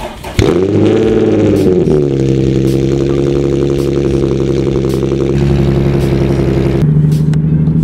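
Nissan 370Z's 3.7-litre V6 through a Tomei Ti titanium exhaust starting up: it catches about half a second in, flares up in revs and drops back, then settles into a loud, steady idle. The idle note shifts slightly near the end.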